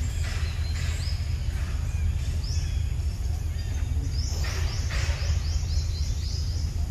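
Birds calling with short, quick rising chirps, breaking into a fast run of about eight chirps in the second half, over a steady low outdoor rumble.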